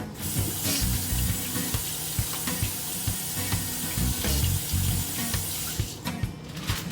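Kitchen sink tap running while hands are washed under it; the water shuts off near the end.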